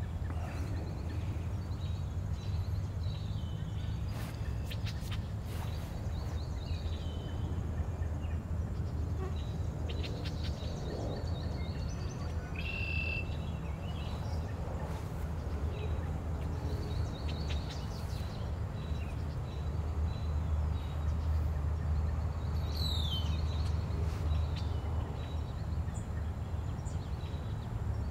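Outdoor ambience: a steady low rumble with faint, scattered chirps of small birds, a short clearer call about halfway through and a quick falling chirp later on.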